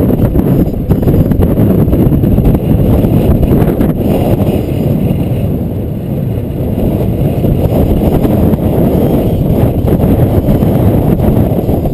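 Heavy wind buffeting on a camera microphone moving at downhill cycling speed: a loud, steady low rumble that eases slightly about halfway through.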